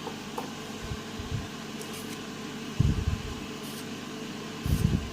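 A hand file scraping a soft cast Wood's metal key in short, light strokes, with a few dull knocks from the work being handled, loudest about three seconds in and near the end. A steady fan hum runs underneath.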